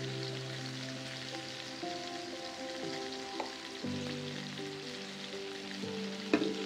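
Meatballs sizzling in hot oil in a nonstick frying pan as they are turned with a fork, with a sharp clink of the fork on the pan near the end. Held background music notes run underneath.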